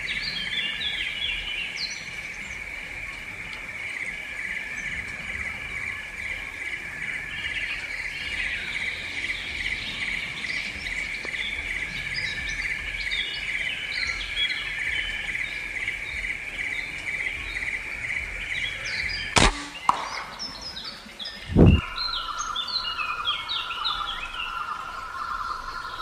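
Forest insects keep up a steady, fast-pulsing drone while birds chirp here and there. About 19 seconds in there is a sharp crack, and about two seconds later a louder low thump. After that the insect drone goes on at a lower pitch.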